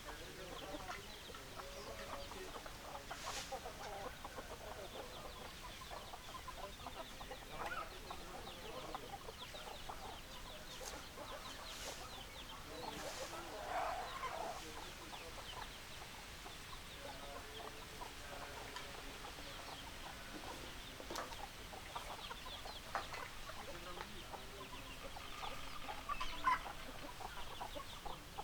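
A flock of hens clucking and chattering, many short overlapping calls throughout, with a louder call about halfway and another sharp one near the end.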